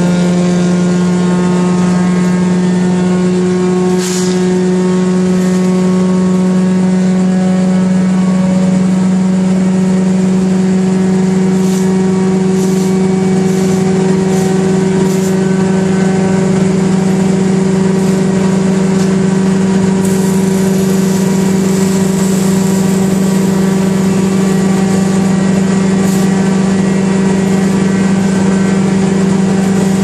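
1974 Wayne wood chipper running steadily at working speed, with a constant engine-and-drum drone. It carries a few brief cracks and a high hiss for several seconds past the middle.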